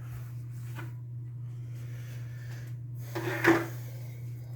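A steady low hum runs under a single light knock about three and a half seconds in, like a hard object being set down or bumped, with a fainter tick about a second in.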